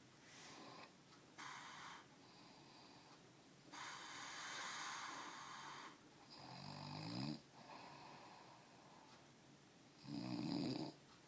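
A sleeping man snoring: uneven breathy breaths with one long hissing exhale, then two louder buzzing snores, the second and loudest near the end.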